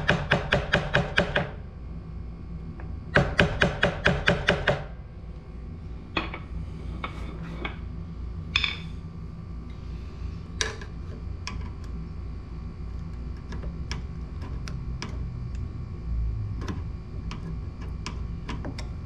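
Ball-peen hammer tapping rapidly on metal at a motorcycle clutch, about six ringing strikes a second in two short runs, to work loose the small cover plate on the clutch. Then scattered light clinks of a screwdriver and other hand tools on metal.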